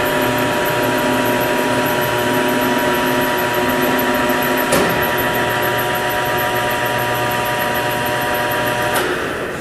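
Electric drive motor and gearing of a P&H WP12 welding positioner running steadily as it moves the table, a steady mechanical whine with several held tones. A short click comes about halfway through, and the drive stops near the end.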